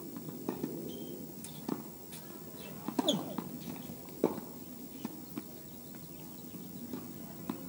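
Tennis balls knocking on the court: bounces and racket hits among light footsteps, the two loudest knocks about three and four seconds in.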